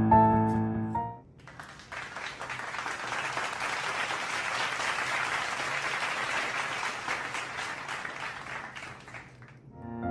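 Piano music cuts out about a second in, followed by several seconds of dense crinkling and rustling of plastic booster-pack packaging being handled and opened. The piano music resumes right at the end.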